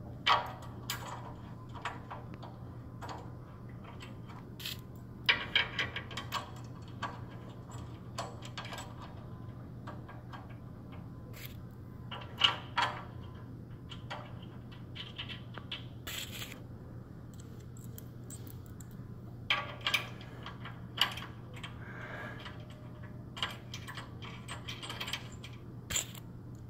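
Small metallic clicks and clinks of steel bolts being handled and hand-threaded into the corners of a steel lift frame, coming irregularly, some in quick clusters, over a steady low hum.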